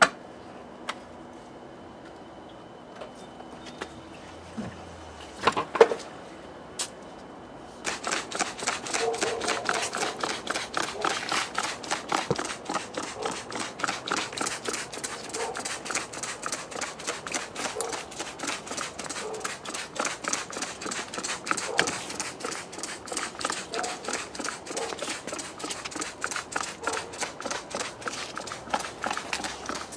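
A few knocks in the first six seconds. Then, from about eight seconds in, a hand trigger spray bottle is squeezed rapidly and steadily, several short hissing squirts a second, wetting down a motorcycle.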